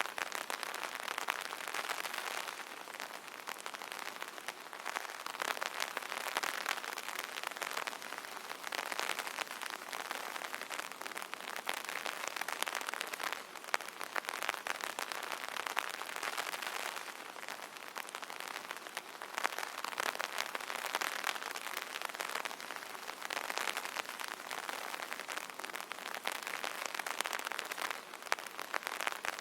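Steady rain pattering on an umbrella: a dense, even patter of drops that swells and eases slightly.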